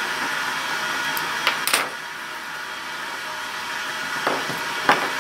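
A few small sharp clicks and rustles from solar wire connectors being pushed together by hand, two close together about a second and a half in and one more near the end, over a steady fan-like hiss.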